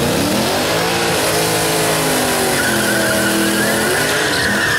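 Car doing a burnout: the engine is held at high revs, its pitch wavering up and down, and a steady tyre squeal joins in about halfway through as the rear tyres spin and smoke.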